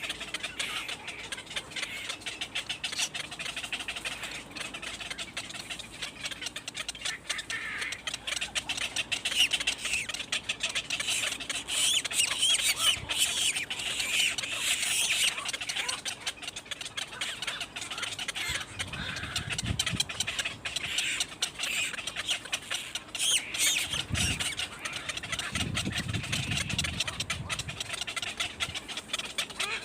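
Birds chirping and cheeping in a rapid, continuous stream of short high calls, with a few low thuds in the last third.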